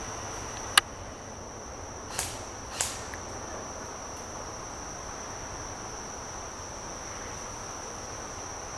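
A sharp crack a little under a second in, then two softer pops about a second and a half later, typical of airsoft guns firing and BBs hitting. Under it, insects keep up a steady high-pitched buzz.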